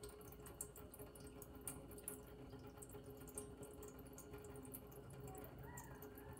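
Faint trickling and dripping of water seeping through a new alkaline water filter cartridge into a stainless steel sink, as water is poured into it slowly to flush it before use.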